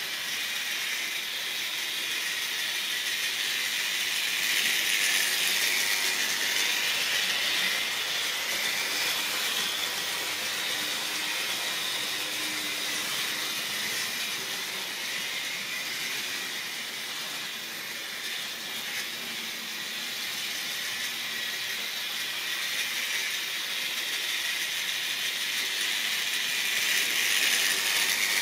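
Model railway train running on metal track: a steady hiss of wheels and motor with a light rattle of the wagons. It grows louder near the end as a rake of tank wagons rolls past close by.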